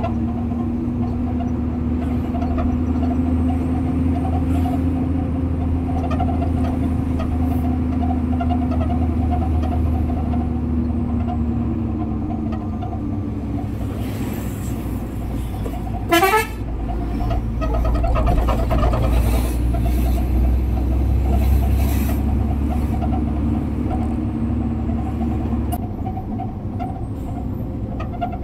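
Truck engine running steadily on the road, with horn toots over it. A short, loud blast rising in pitch comes a little past halfway.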